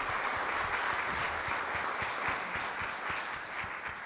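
Audience applauding in a large hall, the clapping dying away near the end.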